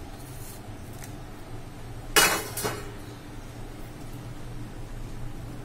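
Metal kitchen utensils clinking against a cooking pot: two sharp clatters about two seconds in, half a second apart, over a low steady hum.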